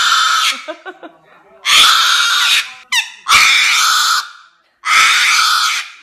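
Sulphur-crested cockatoo screaming: four loud, harsh screeches of about a second each, with a short chirp between the second and third.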